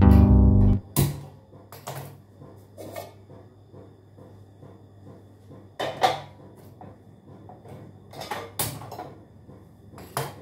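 Guitar background music that stops about a second in, then steel cooking pots, lids and utensils clanking and clinking now and then at a gas stove, with a faint steady low hum underneath.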